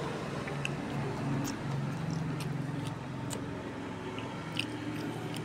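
A steady low mechanical hum, like a running engine or traffic, with about six short sharp clicks and crackles scattered through it.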